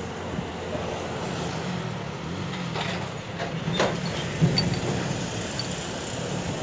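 A motor engine running steadily, with a low hum, and a few light metallic clicks around the middle as differential gear parts are set together by hand.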